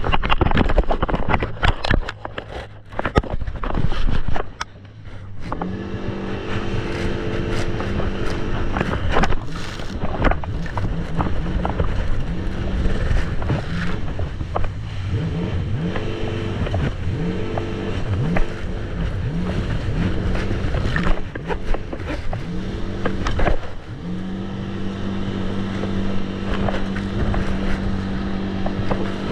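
Jet ski engine running at speed, with a rushing noise of wind and water for the first few seconds. In the middle the engine pitch dips and climbs back repeatedly as the throttle or load changes, then holds steady near the end.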